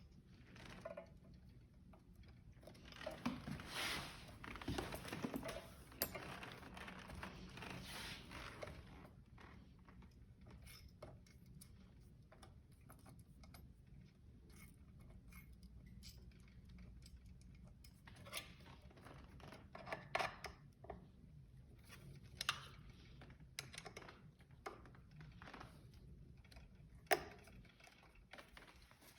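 Scattered metallic clicks and clinks of hand tools and screws being handled while a scooter's brake assembly is screwed back onto the front wheel, busiest a few seconds in, then single sharp ticks.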